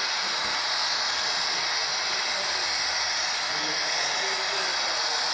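A steady hiss, with faint voices murmuring in the background.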